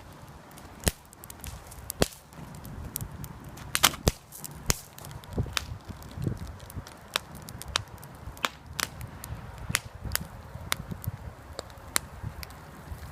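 Campfire burning, wood crackling and snapping in sharp, irregular pops over a low rumble.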